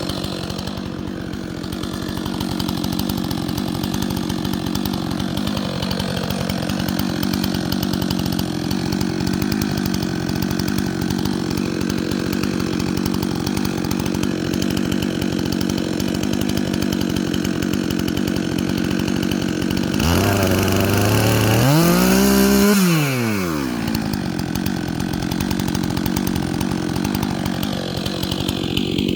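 Chainsaw engine running steadily, then revving up about twenty seconds in and dropping back down a few seconds later.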